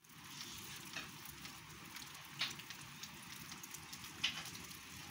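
Light rain falling on a wet pasture, a faint, even hiss, with a few short, high chirps of small birds at intervals.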